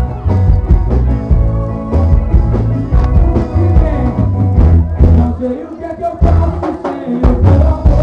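Live band playing upbeat rock-style music with a steady drumbeat, bass and guitar, and a voice singing over it. The drums and bass drop out briefly twice in the second half, then come back in.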